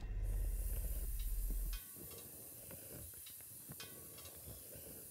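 Wrecked car settling after a crash: faint, irregular ticks and clinks of metal and debris over a soft hiss. A low rumble cuts off suddenly a little under two seconds in.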